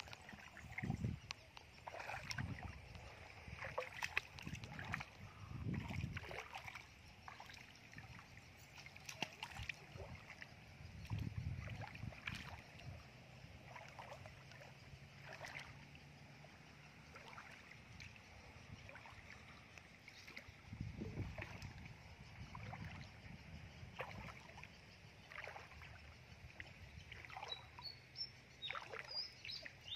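Feet wading through shallow muddy water: irregular sloshing and swishing steps with small splashes.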